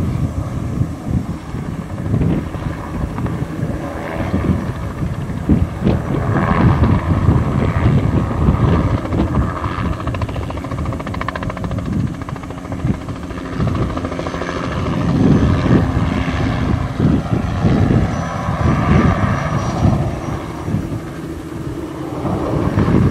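Bell 206B-3 JetRanger III helicopter flying low, its turboshaft engine and two-blade main rotor beating steadily, swelling and easing in loudness as it passes and turns.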